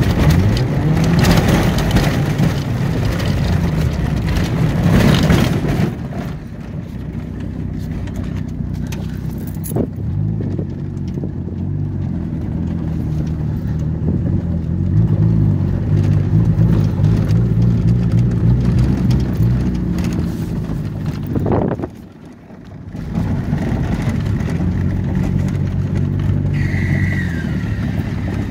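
A Hyundai car driving, heard from inside the cabin: engine running with road and wind noise, the engine note rising and falling. About three-quarters of the way through the sound drops away for about a second, then comes back.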